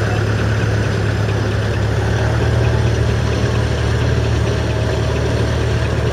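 1925 Burrell single-cylinder steam road roller's engine running steadily: a continuous low hum that holds an even level.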